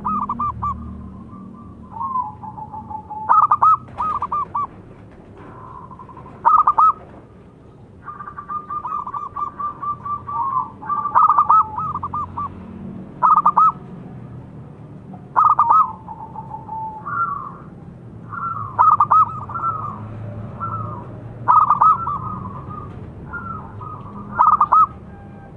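Zebra dove (perkutut) singing: loud phrases of quick, high staccato cooing notes, one every two to three seconds.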